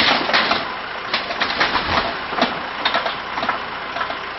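Backhoe bucket crushing and tearing through mobile home wreckage: a string of cracks, crunches and scraping of sheet metal and wood, the loudest right at the start, over the backhoe's engine running.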